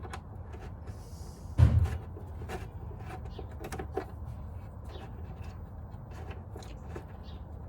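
Hand tools and fasteners clinking and clicking irregularly on a motorcycle's front end, with one heavy thump about a second and a half in.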